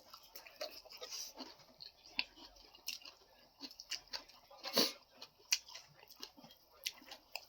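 Chewing and eating close to the microphone: scattered small wet clicks and mouth smacks, one louder smack a little before five seconds in.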